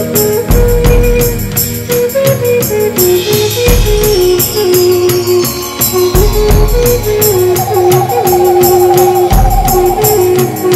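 Instrumental new-age music with a Native American-style flute melody moving in small steps over a quick, steady shaker- or tambourine-like beat and a deep bass. About two-thirds of the way in, a higher wavering tone joins above the melody.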